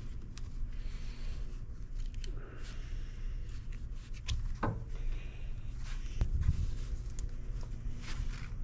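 Hands fitting seal rings onto a steel hydraulic cylinder piston: scattered light clicks of metal and rubber parts, and paper rustling, over a steady low hum.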